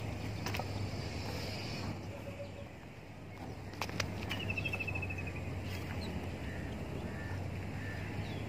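Quiet outdoor ambience with a steady low hum. About four seconds in, a bird gives a rapid trill of short high notes that falls slightly in pitch and lasts over a second.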